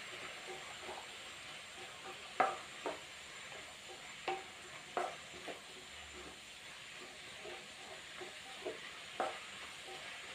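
Onions, carrots and tomatoes frying with a quiet, steady sizzle in a kadai on a gas burner while a spatula stirs them. The spatula knocks and scrapes against the pan at irregular moments, the loudest about two and a half seconds in.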